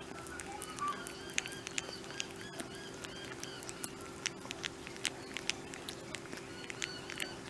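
Flying fox licking and chewing a banana: irregular small wet clicks and smacks of its tongue and mouth, over a steady low hum.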